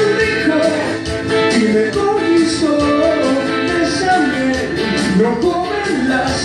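A rock song: a voice singing over guitar, with a steady beat.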